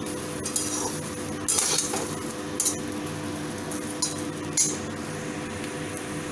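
A flat metal spatula scrapes and clinks against the inside of a metal kadhai, stirring potato wedges in the dry pan without oil, about five strokes spread through. A steady low hum runs underneath.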